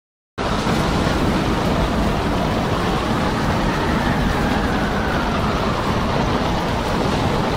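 Storm wind and heavy seas heard from a ship's deck, a loud steady rushing noise with wind buffeting the microphone, starting abruptly about half a second in. A faint whistle slides slowly down in pitch in the middle.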